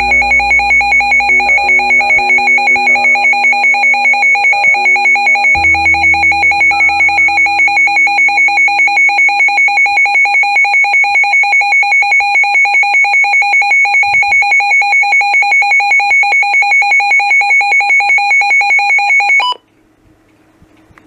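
Midland WR100 NOAA weather radio sounding its alert siren in alert-test mode: a loud, high-pitched, rapidly pulsing alarm tone that cuts off abruptly near the end.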